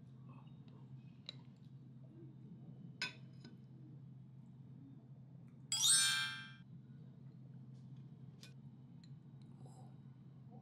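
A bright chime sound effect rings out about six seconds in and dies away within a second, over a low steady hum. Before it come two faint clicks from the ceramic bowl and lid being handled.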